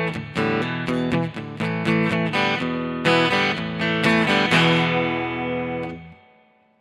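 Fender Santa Rosa solid acoustic guitar played through a solid-state combo amp, picking a run of chords and single notes. A last chord rings out and fades, then cuts off about six seconds in.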